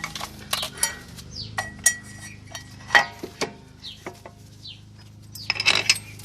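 Metal tools and brake parts being handled: irregular sharp clinks and clatters, some ringing briefly, with a busy cluster near the end, over a steady low hum.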